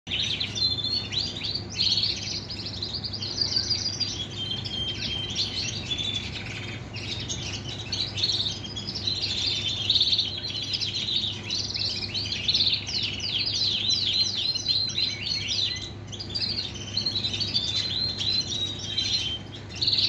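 Shirazi canary, yellow variegated, singing its full song: a long unbroken run of rapid high trills, rolls and chirps.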